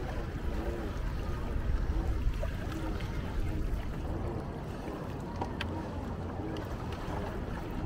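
Pedal-powered water bike moving across calm water: water swishing along the hull over a steady low rumble, with a faint hum that swells and fades about once a second.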